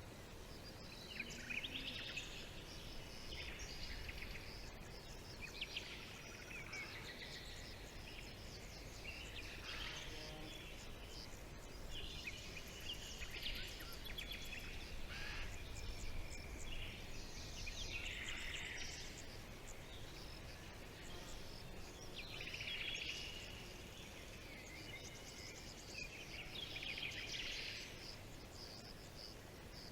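Songbirds singing in a forest: short chirping and trilling phrases every few seconds, over a steady low background rumble.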